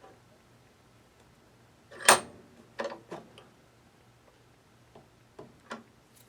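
A few sharp clicks and taps of metal tools being handled, the loudest about two seconds in with a brief high ring, two more soon after and two fainter ones near the end.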